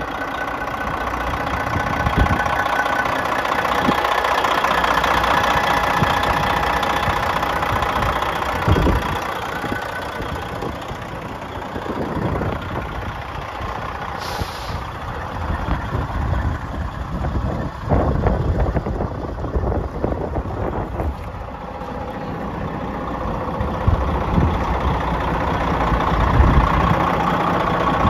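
Detroit Diesel engine of a 1994 International 9200 tractor truck idling steadily, its sound swelling and fading as the listener moves around the truck.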